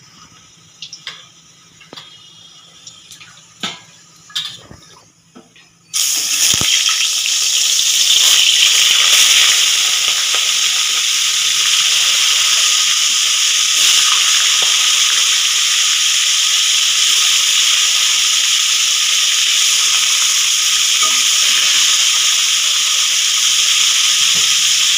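After a few faint clicks, fish pieces hit hot oil in an aluminium kadai about six seconds in, and a sudden loud sizzle starts and keeps going steadily as they shallow-fry.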